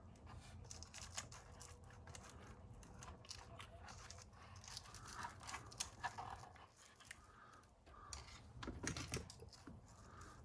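Faint handling noises, small clicks, scrapes and rustles, as a LiPo battery is fitted into an RC truck's battery tray.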